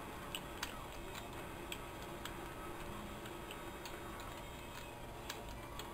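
Computer keyboard keys clicking in slow, irregular typing, a few keystrokes a second, over a faint steady hum.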